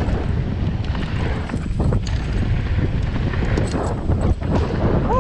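Wind buffeting the action camera's microphone over the rumble and rattle of a mountain bike rolling fast down a dirt trail, with scattered knocks from the bike over bumps. A short high squeak comes near the end.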